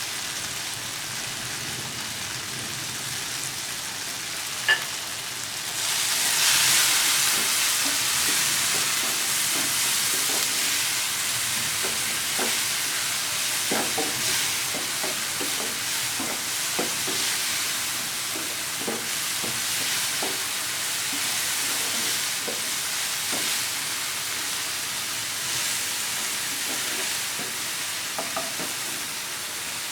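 Chopped onion, green chilli and tomato sizzling in hot oil in a frying pan while being stirred, with the spatula knocking against the pan now and then. A sharp clink comes just before the five-second mark, and the sizzle grows louder about six seconds in.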